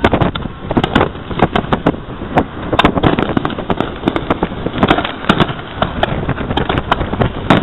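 Fireworks going off: a dense, irregular string of sharp bangs and crackles, several a second, over a low rumble.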